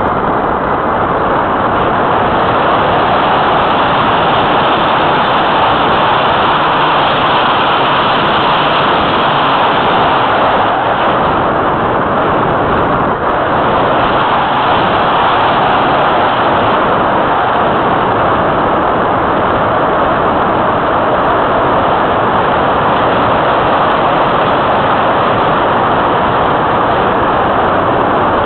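Steady rushing wind over a keychain camera mounted on the wing of an Easy Glider Pro RC glider in flight.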